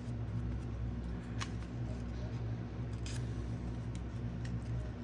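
Magazine paper being cut with scissors and handled: a few short, crisp snips about a second and a half apart, over a steady low hum.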